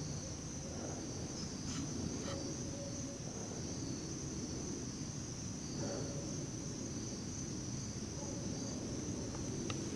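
Steady high-pitched insect chorus, a continuous trilling, with a couple of faint clicks about two seconds in.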